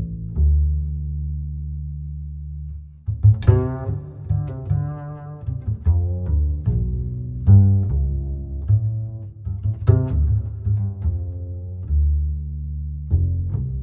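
Background music: low held bass notes, then from about three seconds in a run of short, sharply struck pitched notes.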